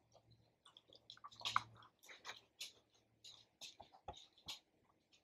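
Faint, irregular small taps, clicks and scratches, the kind a cat makes pawing at a cup on a hard surface. Under them a faint low hum stops about three and a half seconds in.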